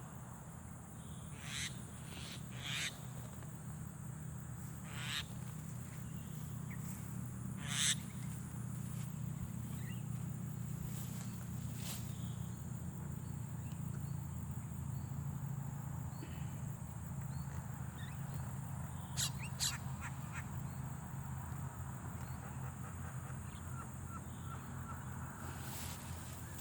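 Outdoor field ambience with a few short, harsh bird calls: several in the first eight seconds and two close together about two-thirds of the way through. Under them run a steady low hum and a steady high insect-like drone.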